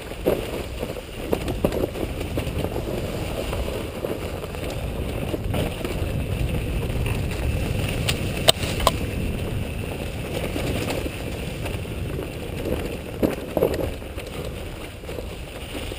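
Enduro dirt bike running as it rides a rough forest trail, a rough low rumble with knocks and rattles from the bike going over the ground; one sharp knock about eight and a half seconds in.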